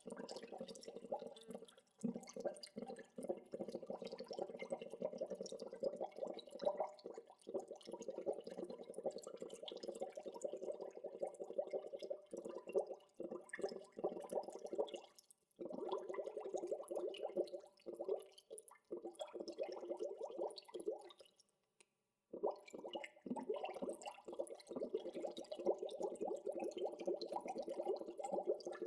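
Water bubbling: a dense, steady stream of small bubbles popping. It breaks off briefly about fifteen seconds in and again for about a second a little past twenty seconds.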